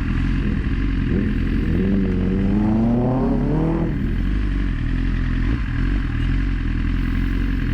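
Vehicle engine running with a steady low drone. About two seconds in, a pitched engine note rises for about two seconds, then breaks off suddenly.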